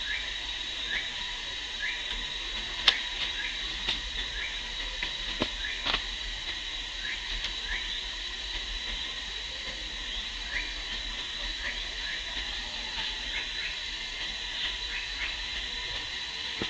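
Forest ambience: a steady high hiss with short rising chirps about once a second, and a few sharp clicks in the first six seconds.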